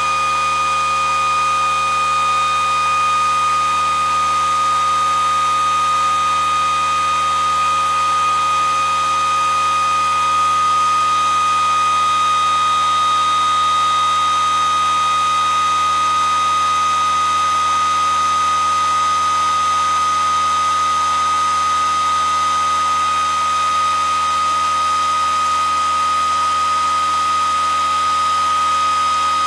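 Pulse motor running fast, a steady high-pitched whine made of several pure tones over a light hiss, its coils pulsing at about 620 hertz.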